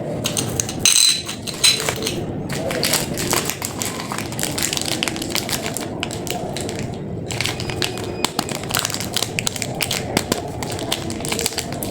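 Candy packaging being handled: rapid, irregular crackling and tapping clicks over a steady background noise, with a louder burst of crackles about a second in.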